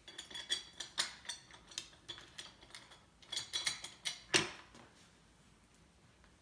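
Small metal hardware clinking and tapping irregularly as bolts, washers and a hinge plate are handled and fitted to a Humvee X-door hinge, with one louder knock about four seconds in.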